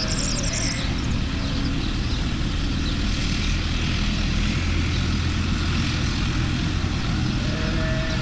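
A steady low motor-like rumble, with a skylark's high, rapid chirping song heard in the first second and again near the end.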